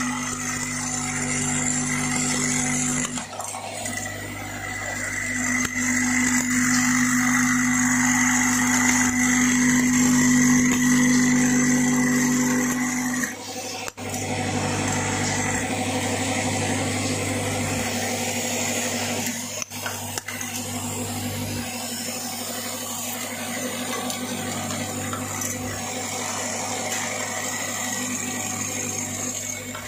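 Vibratory bowl feeder running: a steady electromagnetic hum with washer-headed metal studs rattling as they climb the bowl's spiral track. The sound breaks off briefly about fourteen seconds in.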